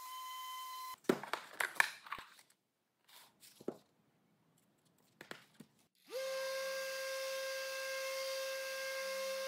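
A steady power-tool hum cuts off abruptly about a second in. Handling clicks and rustles follow as a sanding disc is fitted to a Festool random orbital sander. About six seconds in, the sander starts up, rising briefly in pitch, and then runs at a steady hum.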